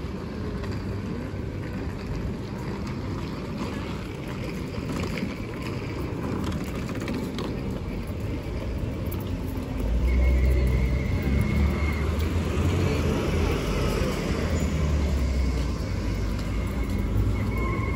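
Busy city street ambience: road traffic running past, with a louder low engine rumble setting in about halfway through.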